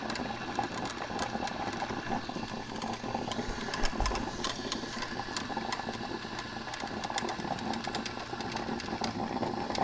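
Black & Decker thermal carafe drip coffee maker brewing: a steady gurgling and sputtering with irregular crackles and pops.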